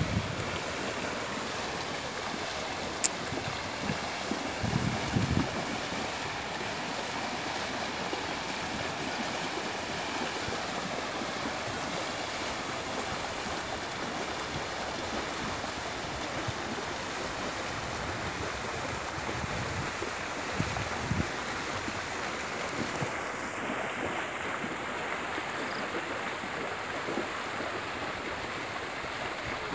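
Water buffalo herd wading through shallow floodwater: a steady rushing splash of many legs moving through water, with a couple of low wind gusts buffeting the microphone.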